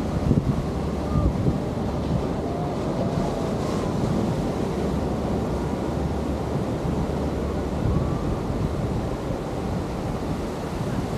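Surf breaking and washing up a sandy beach, a steady roar of waves, with wind buffeting the microphone.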